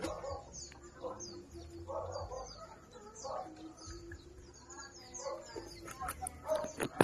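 Chickens clucking in short calls about once a second, with many small high chirps repeating throughout. A few sharp clicks come near the end.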